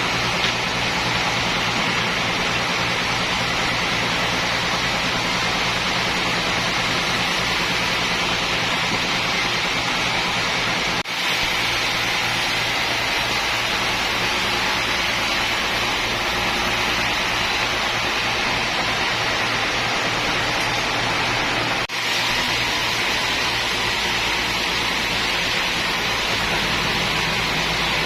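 Sawmill machinery running steadily: a constant low hum under a dense rushing noise, with two brief dips, about a third and two thirds of the way through.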